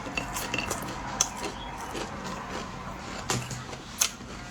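Close-up eating sounds: scattered sharp crunches and clicks of food being bitten and chewed, the strongest two near the end.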